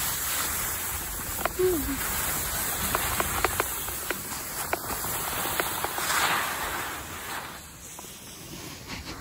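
Skis sliding over snow with wind on the microphone: a steady hiss that swells about six seconds in and then eases, with scattered light clicks.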